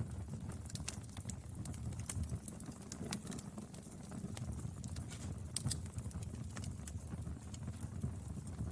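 Wood fire burning: a steady low rumble of flames with frequent irregular crackles and pops of burning firewood.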